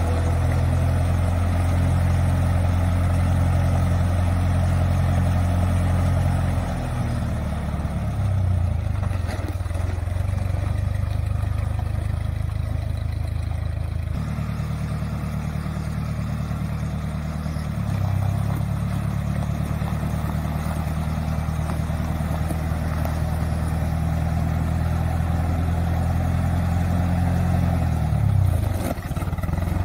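A 1964 Massey Ferguson 135 tractor engine running steadily as the tractor is driven. The engine note drops about a quarter of the way in, changes again around halfway, and dips briefly near the end.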